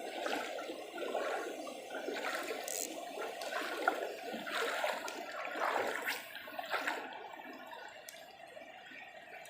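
River water flowing and splashing, the rush easing off about seven seconds in.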